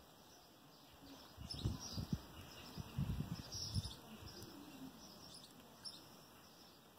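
Birds chirping faintly, with bursts of low rumbling noise on the microphone from about a second and a half to four seconds in.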